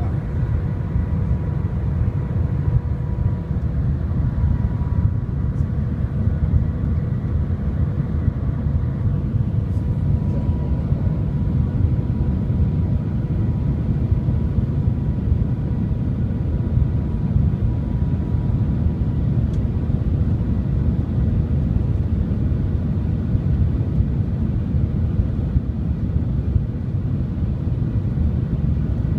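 Cabin noise of the Shanghai Transrapid maglev train cruising at about 300 km/h: a steady low rumble and rush of air with a faint steady whine above it.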